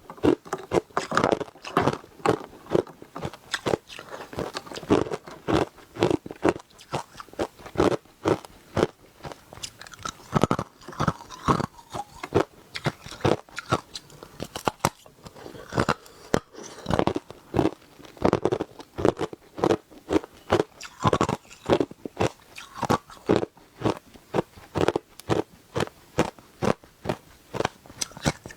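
Close-up crunching of hard ice being bitten and chewed: a rapid, irregular run of sharp cracks, about two to three a second.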